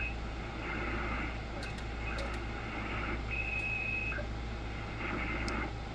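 Receiver hiss and static from an Icom IC-746Pro being tuned across the 40-metre band in lower sideband, with faint, garbled snatches of sideband signals. A steady whistling tone sounds for just under a second a little past three seconds in. The band is nearly empty in poor conditions.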